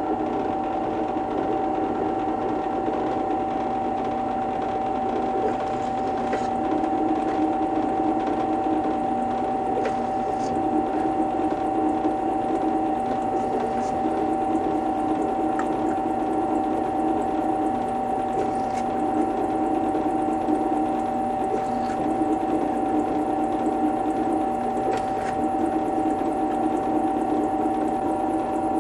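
Drill press motor running with a steady tone while its bit drills a ring of jet holes in a thin aluminum bottle. A rougher cutting sound comes and goes every few seconds as each hole is drilled and the piece is moved on to the next, with a few light clicks.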